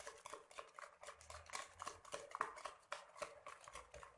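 Egg-and-sugar cake batter being mixed by hand in a bowl: quick, irregular clicking and scraping of the mixing utensil against the bowl, several strokes a second.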